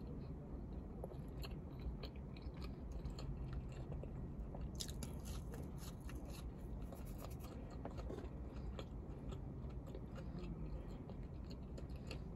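Close-up chewing and mouth sounds of a person eating a fast-food meal, with a denser run of sharp clicks and crackles about five to seven seconds in, over a steady low hum.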